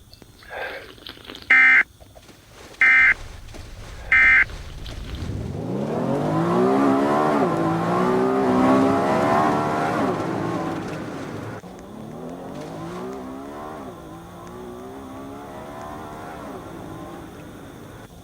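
Emergency Alert System end-of-message tones: three short bursts of data-burst beeping about a second apart, closing the flash flood alert. Then an engine revving up and down, its pitch rising and falling, louder for several seconds and then quieter.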